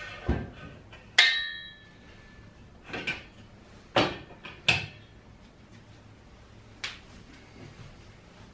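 Aluminium extrusion profiles knocking and clinking as a cross member is set between the frame's legs: a dull thud, a ringing metallic clank about a second in, then several sharper knocks spread over the next few seconds.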